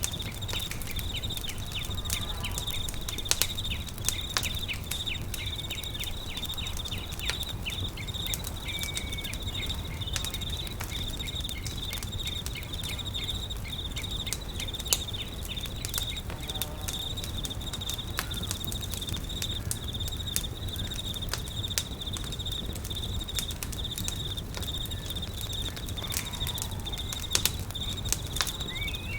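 Campfire crackling, with sharp pops scattered throughout, over a steady high trilling of insects. Now and then a short faint bird call.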